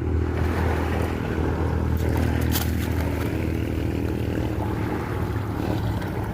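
Sea waves at the shore with wind buffeting the microphone, a steady low rumble under the surf. There are a few brief hissing gusts about two seconds in.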